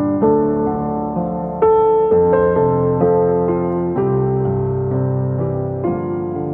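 Background music: slow piano with sustained notes and chords, a new chord struck every second or two and left to ring.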